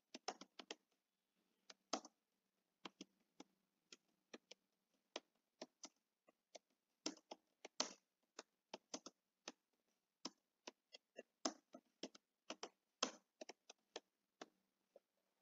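Computer keyboard being typed on: sharp key clicks in uneven runs and pauses, stopping near the end.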